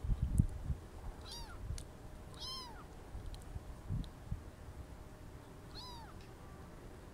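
Young kitten mewing three times: short high calls that rise and fall in pitch. Low thumps come near the start and again about four seconds in.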